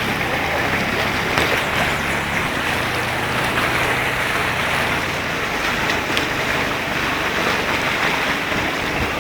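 Swollen floodwater river rushing steadily, a continuous dense roar of flowing water.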